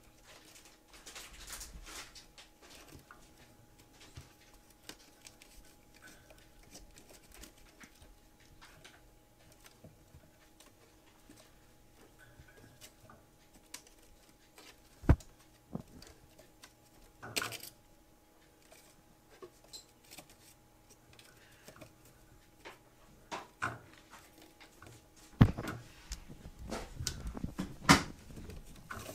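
Kittens playing in and around a wicker basket and a wire cage: scattered light taps, scratches and rustles of paws and claws, with a few sharp knocks about halfway through and again near the end.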